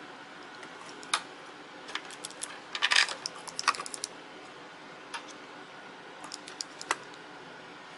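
Small hard clicks and light metallic taps, scattered and irregular, with a quick flurry about three seconds in, as a component is handled and fitted back into an opened laptop.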